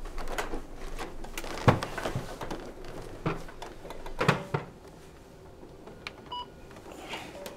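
Rustling and knocking as a person climbs onto an office photocopier and sits on its glass, with two sharp knocks about one and a half and four seconds in. A few seconds later there are small clicks and a short electronic beep from the copier's control panel.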